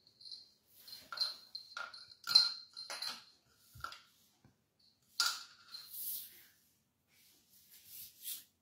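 Plastic bottle cap clicking and clattering on a hard tile floor as a kitten bats it around: a string of sharp, irregular taps with a short ringing tone.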